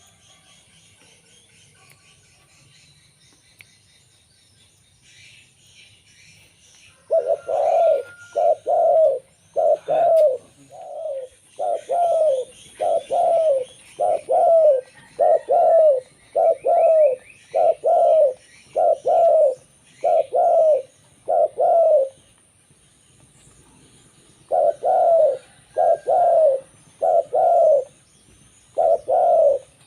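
Zebra dove (perkutut) cooing: a long run of short coo notes, about one every three-quarters of a second, starting some seven seconds in, pausing for a couple of seconds near the end, then resuming. Small birds chirp faintly in the background.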